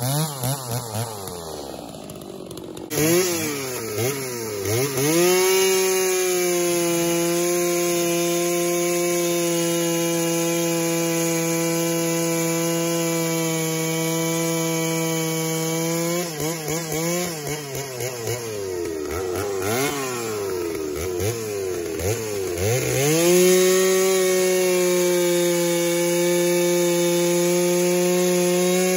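Stihl two-stroke chainsaw bucking a log into rounds. The engine holds a steady high pitch under load while cutting. It drops and wavers between cuts near the start and again around the middle, then revs back up into the next cut.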